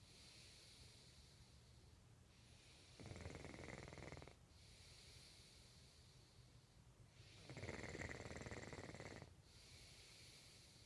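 Slow, steady snoring: two louder snores, about three and eight seconds in, with softer breaths between them.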